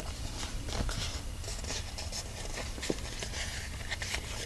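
Cardstock being folded by hand along its score lines: paper rustling and rubbing as the creases are bent, with a few soft clicks.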